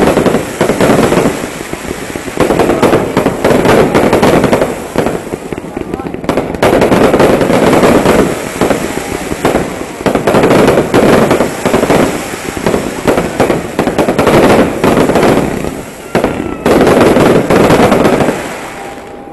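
Fireworks display: aerial shells bursting in rapid succession with dense crackling, coming in loud waves every few seconds, dying down near the end.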